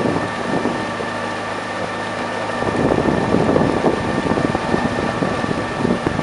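A motor drones steadily with a constant hum, under wind rumbling on the microphone that grows rougher and louder about three seconds in.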